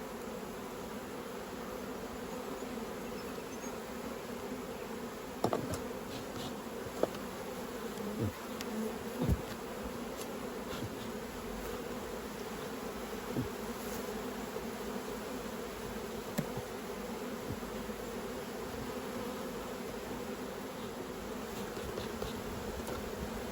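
Honey bees buzzing steadily around an open hive. A few sharp knocks come between about five and nine seconds in, as wooden hive frames are handled and moved.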